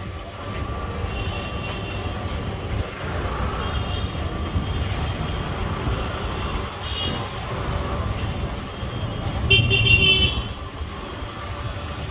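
Busy market-lane street noise: motorbike and scooter engines running close by under a murmur of voices, with a loud vehicle horn honking for about a second near the ten-second mark.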